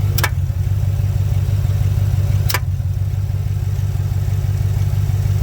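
GMC Sierra AT4 pickup engine idling with a steady low hum. Two sharp clunks come about two seconds apart, the cold-start clunking/knocking noise in the truck.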